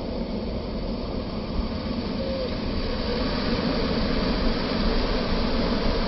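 Ocean surf breaking and washing up the beach, a steady rush of water noise that swells slightly about halfway through.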